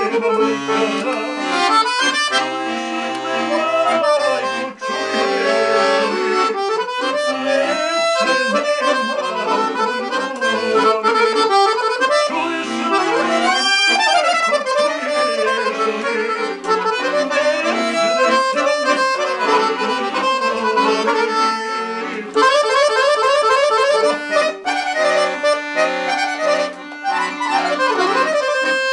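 Accordion playing a fast instrumental folk melody full of quick runs, over bass notes; about two thirds of the way through it switches to rapid repeated notes.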